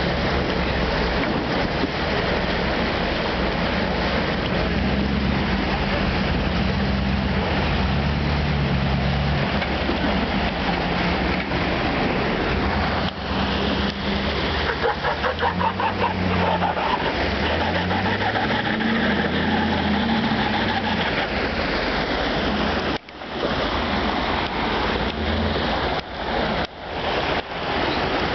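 Full-size 4x4 truck's engine running and revving up and down as it crawls through a boulder-strewn creek bed, over the constant rush of fast creek water. The engine rises and falls in pitch several times around the middle, and the water carries on alone in the last few seconds, broken by a few brief sudden dropouts.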